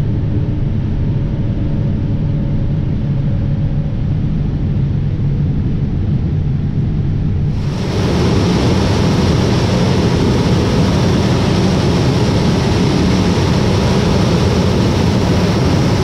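John Deere S780 combine harvesting corn: a steady low drone of the engine and threshing machinery heard from inside the cab, which about eight seconds in gives way abruptly to a louder, fuller rush of noise from the 12-row corn head pulling in and snapping standing stalks, heard up close at the header.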